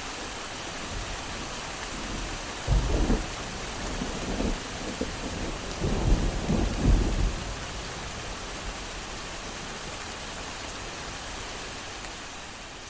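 Steady rain falling, with light thunder rumbling twice: a short low roll about three seconds in and a longer one about six to seven seconds in.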